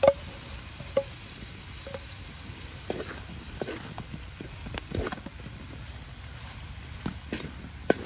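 Mushrooms, onion, peppers and chopped greens sizzling in a large metal pan over a fire, stirred with a wooden spatula that scrapes and knocks against the pan. A sharp knock comes right at the start and another about a second in.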